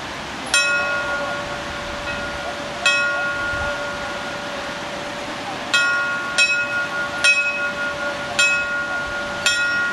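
A bell struck about seven times at uneven intervals, each strike ringing on with a long sustained hum, over the steady rush of a river.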